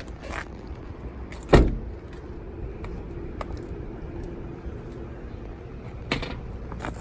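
A single heavy thump about one and a half seconds in, over a steady low rumble, with a few light clicks.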